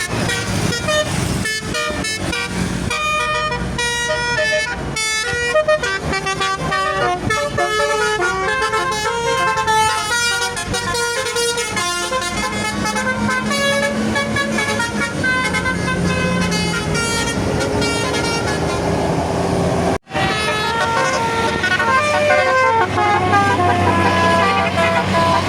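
Basuri telolet musical bus horn playing a fast tune of short stepping notes, with the bus engine running beneath. The horn breaks off sharply about twenty seconds in, then more horn notes follow.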